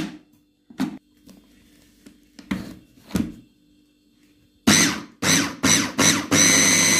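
Electric food processor blending a red vegetable mixture. After a few light knocks, the motor gives about five short pulses, then runs steadily with a whine.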